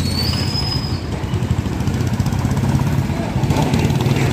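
Auto-rickshaw engine idling with a steady, rapid low chug amid street traffic. A thin high whine lasts about a second near the start.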